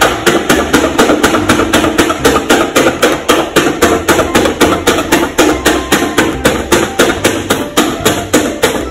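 Rapid, even tapping, about five taps a second, of a marker pen dabbing dots onto a paper card, over background music.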